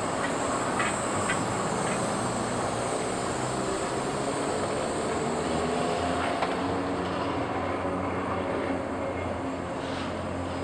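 Vintage streetcar rolling slowly past on street track, with a steady low hum and a few sharp clicks from the wheels on the rails. It grows a little quieter near the end as the car moves away.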